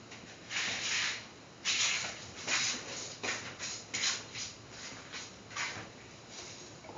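Oil heating in a stainless steel frying pan, spitting and sizzling in irregular short hissing bursts.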